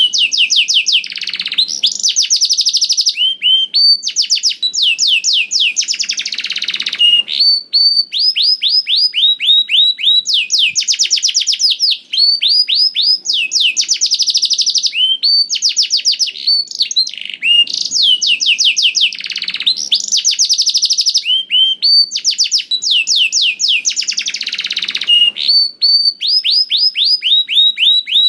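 Domestic canary singing a long, unbroken song of fast trills. Each phrase is a rapid run of repeated high notes, and the phrase changes every second or two.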